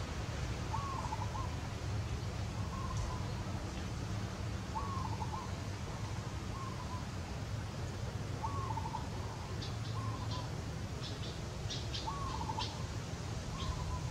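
A bird calling over and over, about every four seconds: a short note with a quick stuttering tail, then a shorter flat note. A run of short, high ticks comes in the second half, over a steady low rumble.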